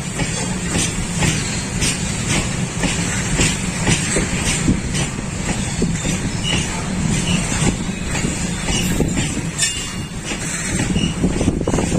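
Train running: a steady low rumble with frequent light clicks and clatter.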